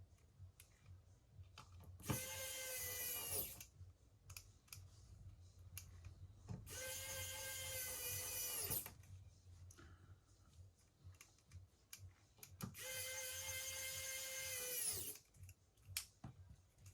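Small electric precision screwdriver driving in the tiny screws of a smartphone's inner plate, three short runs of a steady whine, each winding down in pitch as the motor stops.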